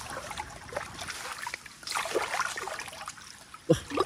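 Hands groping and sloshing through shallow muddy water, with small trickles and splashes and one louder splash near the end.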